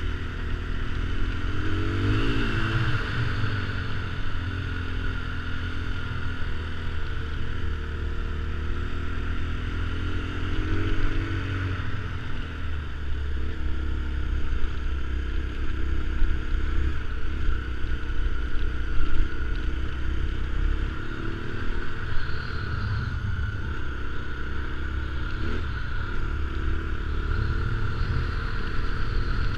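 KTM single-cylinder four-stroke enduro motorcycle engine running under way, its pitch rising and falling as the throttle and gears change, over a steady hiss.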